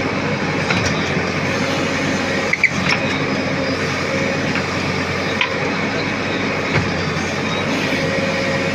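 JCB backhoe loader's diesel engine running steadily, with a couple of brief knocks.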